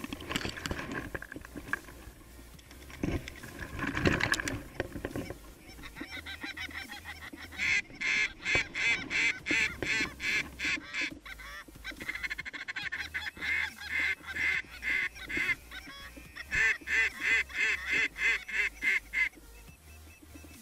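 Canada goose honking in rapid runs of about three honks a second, coming in three stretches from about eight seconds in. Fainter, irregular rustling and knocks come before the honking.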